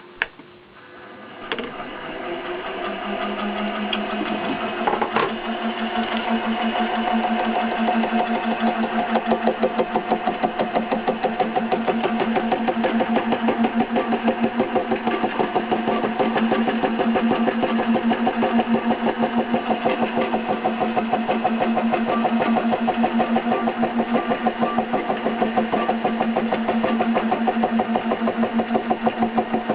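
Milling machine running with a form cutter cutting a tooth into a Delrin helical gear blank: a click near the start, then the sound builds over the first few seconds into a steady mechanical hum with a rapid rhythmic pulse.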